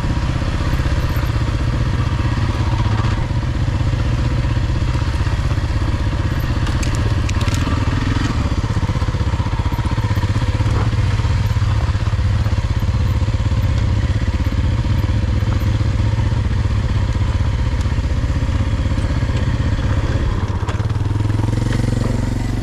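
Kawasaki KLX230's single-cylinder four-stroke engine running steadily at low revs on a rocky dirt trail. A few sharp knocks come about seven seconds in, and the engine note drops near the end.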